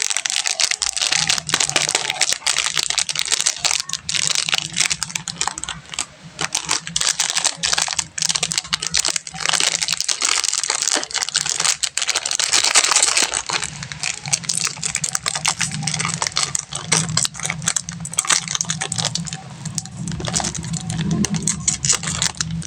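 Plastic candy wrappers crinkling and rustling as sweets are unwrapped, in a dense run of quick crackles and clicks.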